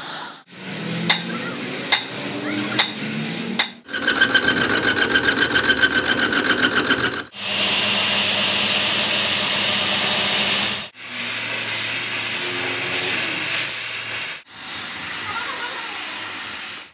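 Metal-repair shop sounds cut together in quick succession. First come three sharp metal strikes about a second apart, then a fast rhythmic machine pulsing. After that an angle grinder grinds steadily against a steel shaft turning in a lathe, and near the end comes the hiss of a gas heating torch.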